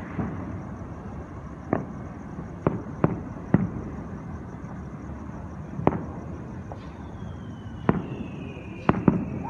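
Aerial fireworks shells bursting at a distance: about eight separate sharp booms at uneven intervals of half a second to two seconds, with two close together near the end.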